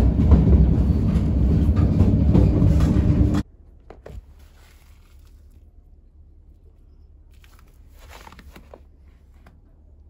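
Loud low rumble of a moving public-transport vehicle heard from inside its cabin, cutting off abruptly about three and a half seconds in. After that it is much quieter, with a few faint crunches of footsteps in snow.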